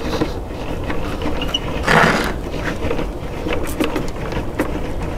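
Hands handling a table saw: a short rustle about two seconds in and a few light clicks near the end, over a steady low rumble.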